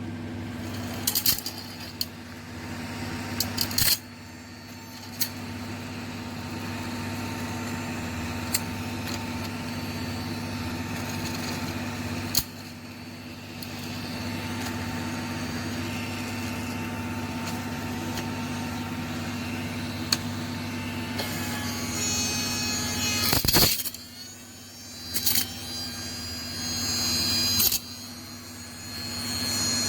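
Battery-powered mini desktop vacuum cleaner running with a steady small-fan hum. A few sharp clicks and knocks come through, with a brief break in the hum a little before the end.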